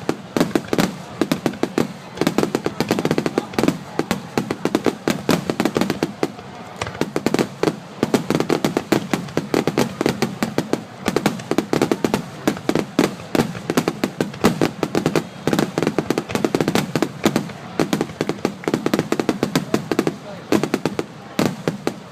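Aerial fireworks shells bursting in a dense, rapid barrage, many sharp bangs and crackles every second, with no let-up.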